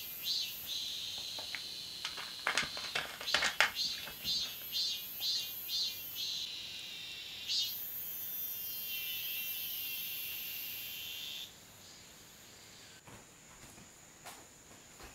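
Insects singing: high, rhythmic pulses about two to three a second, then a steady high buzz that cuts off suddenly about eleven seconds in. A few sharp clicks come about three seconds in.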